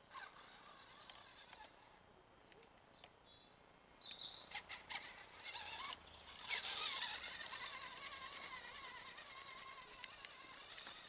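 Traxxas Mini Summit RC truck's electric motor and drivetrain whining as it climbs a dirt slope, rising sharply about six and a half seconds in and then holding steady.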